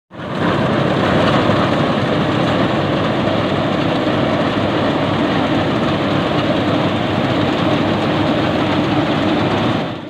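Yanmar YH850 rice combine harvester running while it cuts and threshes standing rice: a steady, dense drone of diesel engine and threshing machinery.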